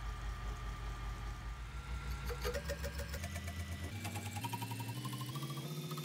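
Horizontal milling machine running with a steady low hum. From about two seconds in, a series of tones climbing in steps with a fast regular ticking takes over.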